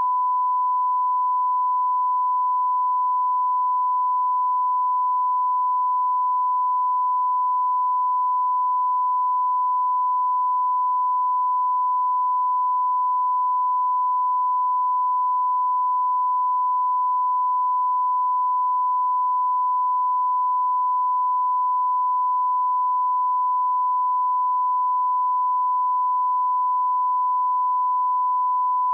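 Steady 1 kHz sine-wave line-up tone, the reference test tone that heads a broadcast master, held at one pitch and one level without a break.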